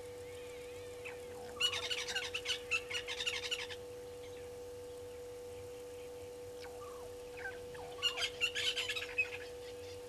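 Brown-headed parrots calling in two bursts of rapid, high-pitched chattering, about two seconds in and again near the end, each a second or two long. A steady hum runs underneath.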